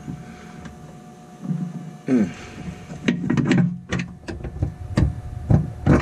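Scattered clicks and knocks of hand work on a car's transmission mount from underneath, with a quick cluster of them about three seconds in. About two seconds in comes a short, falling pitched sound.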